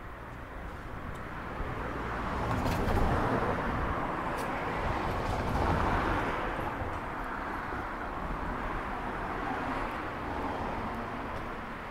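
Cars passing on a street, their tyre and engine noise swelling and fading: loudest about three seconds in and again around six seconds.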